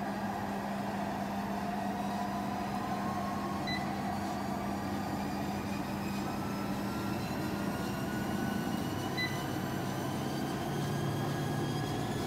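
Treadmill motor and belt running, with a whine that rises steadily in pitch as the belt speeds up. Two short beeps sound, one a few seconds in and one about three-quarters through.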